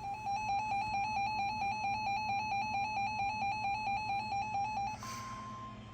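Weather radio receiver's electronic alert alarm sounding for a new warning: a harsh, rapidly warbling beep for about five seconds. It cuts off, and a fainter steady high tone, the weather radio warning alarm tone, follows.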